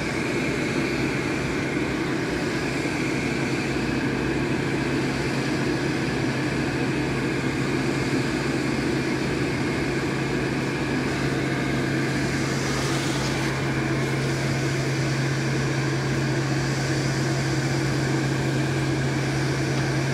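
A fan or blower running steadily: a constant low hum with fainter, higher steady tones. A brief hiss comes about two thirds of the way through.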